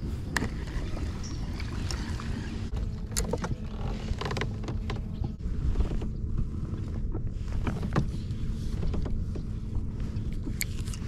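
Fishing kayak on the water: a steady low rumble with scattered clicks, knocks and creaks from the hull and the rod and reel being handled.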